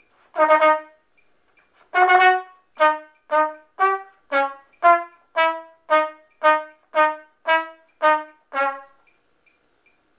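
Mellophone playing a phrase of separate tongued notes: two longer notes, then about a dozen short ones at roughly two a second, stepping up and down in pitch.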